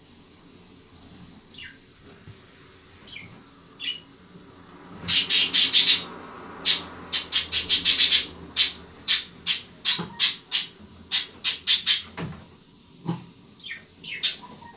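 Young hamster squeaking: a few faint short chirps, then from about five seconds in a rapid string of loud, harsh, high squeaks lasting about seven seconds. This is a frightened hamster being offered food from a spoon.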